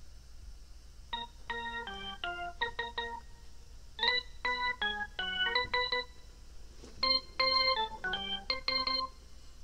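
Intro music on an electronic organ: quick runs of short, bright notes in three phrases with brief pauses between them.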